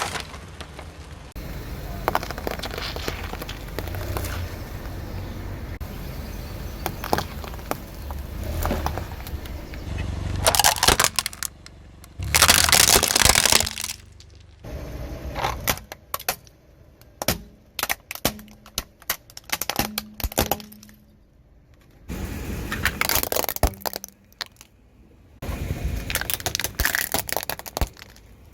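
Car tyres rolling over and crushing brittle objects: a series of crackling, crunching breaks over a low rumble of the car, in several separate spells.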